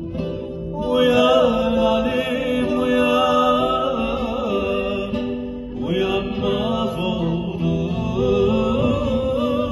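A male voice singing a Turkish folk song (türkü) over two strummed acoustic guitars, heard through a stage PA. The voice comes in about a second in, breaks briefly near the middle and carries on to the end.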